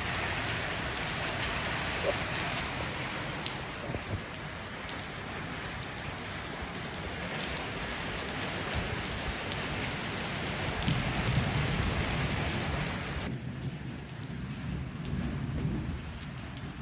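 Heavy rain pouring steadily, with low rumbles of thunder after the middle and again near the end. About two-thirds of the way in the hiss of the rain suddenly drops off.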